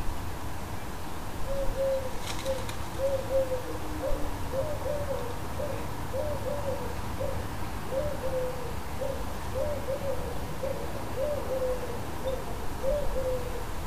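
Wood pigeon cooing: a run of short repeated coo phrases at a steady pitch, starting about a second and a half in, over a low background rumble.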